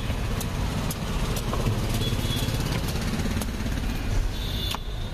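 A motor vehicle engine running close by, a low, steady, pulsing rumble, with a few sharp clicks scattered through it.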